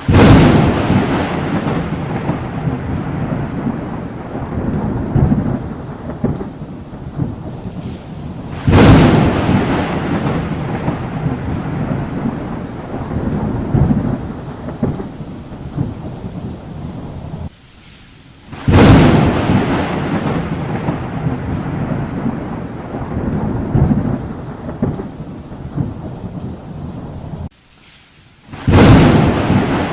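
Thunderstorm: four sharp thunder cracks about ten seconds apart, each rolling into a long rumble that slowly fades, with rain underneath. Each crack comes sharply after a brief quiet lull.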